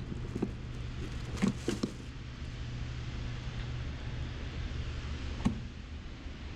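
Fish and a plastic bag being handled in a white plastic cooler box: a few short knocks and rustles, the sharpest about a second and a half and five and a half seconds in, over a steady low hum.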